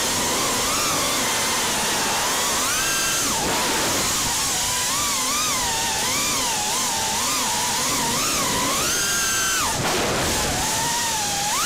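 Brushless motors of a 5-inch FPV racing quadcopter whining, the pitch rising and falling constantly with the throttle. Twice, at about three and a half seconds and near ten seconds, the whine drops sharply as the throttle is cut, then climbs again.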